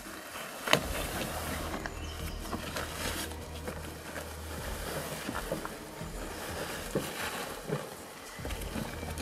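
Rustling of a plastic tarp and handling noises as a tarp-wrapped load is moved about in the bed of a pickup truck, with a sharp knock about a second in and a few lighter knocks later. A low, steady hum lies underneath.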